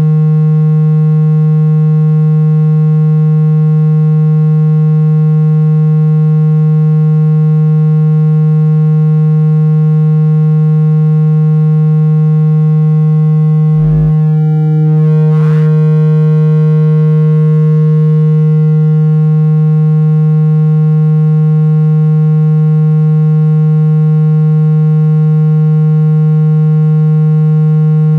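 Loud, steady low buzzing tone played to shake water and dust out of a phone speaker. About halfway through, two clicks about a second and a half apart briefly break it, then the same tone carries on.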